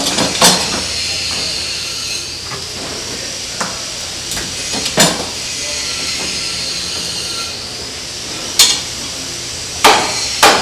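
Hammer blows driving a steamed wooden ship's plank down onto the hull, about half a dozen sharp strikes at irregular intervals, the loudest coming close together near the end, over a steady hiss.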